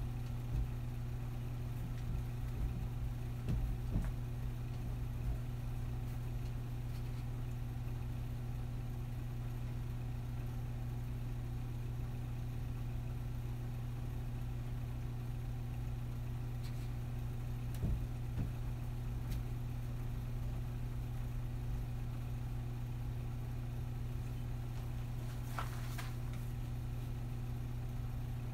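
A steady low hum, like a fan or other appliance running in the room, unchanging throughout. A few faint short knocks break through it, a small cluster a few seconds in and single ones later.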